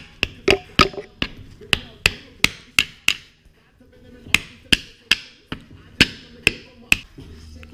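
Hammer tapping a new rear main seal into place: a run of sharp taps, about two or three a second, with a pause of about a second midway.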